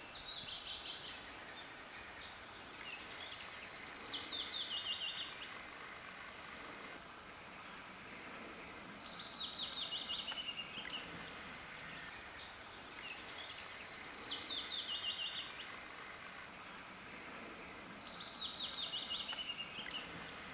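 A songbird singing the same short song over and over: a fast series of high notes that steps down in pitch over about three seconds, repeated roughly every five seconds. A faint steady outdoor hiss runs underneath.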